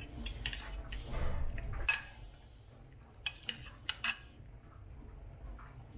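Metal spoon clinking and scraping against a ceramic bowl as cubed raw salmon is stirred and tossed. The clinks come in scattered bunches, with a sharp one about two seconds in and a few more a little past the middle.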